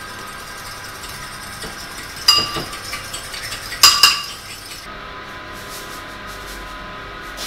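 Metal fork clinking against a ceramic bowl while beating eggs: one ringing clink about two seconds in, a few light taps, then two more clinks around four seconds.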